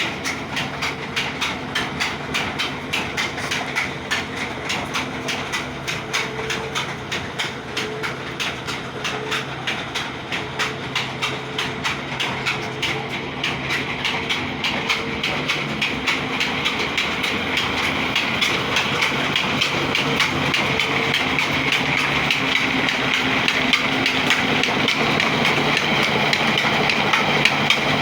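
Diesel engine of a JCB-type earthmoving machine running under load with a regular metallic clanking, about two knocks a second at first, growing louder and busier through the second half.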